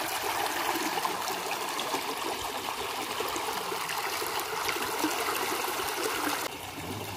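Shallow river water trickling and splashing around a bamboo-and-net fish trap as a man wades in it and works the net, with small drips and splashes throughout; it falls noticeably quieter near the end.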